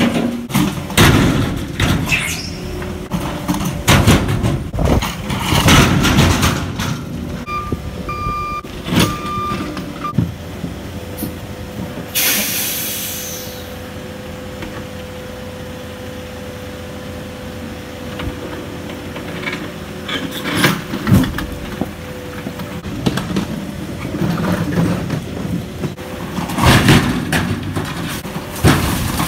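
Broken driveway debris crashing and clattering into the steel bed of a dump truck as a loader bucket dumps it, in a first burst of heavy knocks and again near the end, over diesel engines running. A short hiss of air about twelve seconds in, and a few short beeps a little before it.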